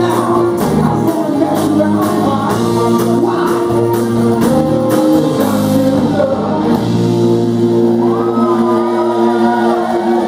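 Live soul band playing with a lead singer, electric guitar, bass and drums. The drum and cymbal strokes stop a little past halfway, leaving held chords under the voice.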